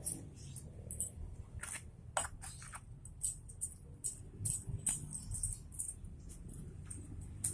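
Metal differential parts clinking and rattling against each other as they are handled, in irregular sharp clinks, over a low steady hum.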